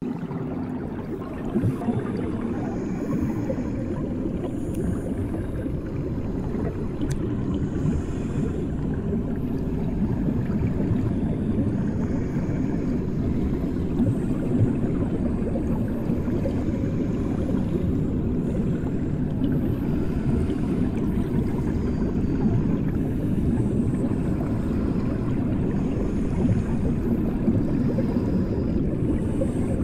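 Bathwater heard with the microphone submerged: a muffled, steady low rumble, as ears under water hear it.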